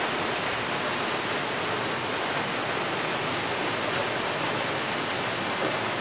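Waterfall and the cascades below it, a steady rush of falling water.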